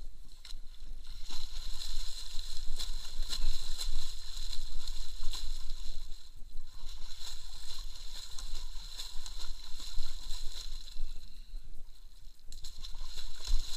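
Water splashing and sloshing in irregular bursts, easing briefly about six seconds in and again near the end.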